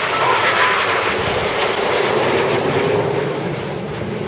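Jet noise from a formation of BAE Hawk T1 jets flying overhead: their Adour turbofans make a steady, loud rushing noise that eases slightly toward the end.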